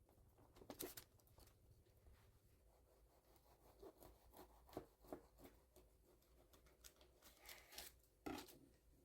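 Faint handling noises: scattered light clicks and knocks with short rustles, one longer rustle near the end.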